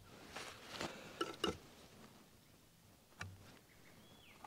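Palette knife scraping and tapping on a paint palette while mixing paint: a quick run of short scrapes and clicks in the first second and a half, then single clicks about three seconds in and at the end.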